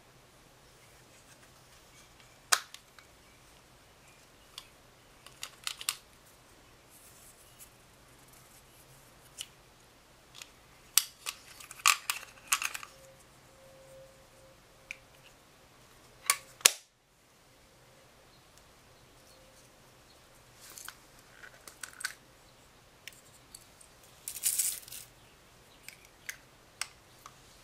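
Small plastic makeup compacts being handled and snapped open and shut: scattered sharp plastic clicks and taps, the two loudest about sixteen seconds in.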